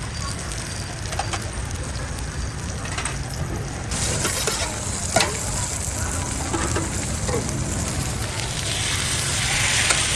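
Bánh xèo batter frying in a hot pan, sizzling, with the sizzle growing louder about four seconds in and again near the end. There is a single sharp clink a little after five seconds.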